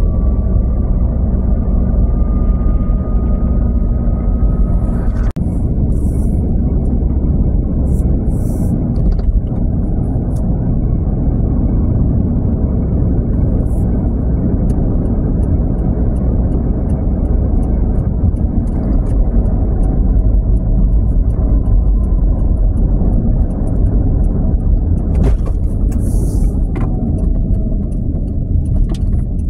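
Steady low rumble of tyre and engine noise from a car driving along a city road, heard from inside the cabin.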